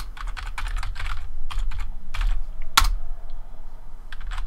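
Typing on a computer keyboard: a quick, irregular run of keystrokes, thinning out after about two seconds, with one sharper key strike nearly three seconds in.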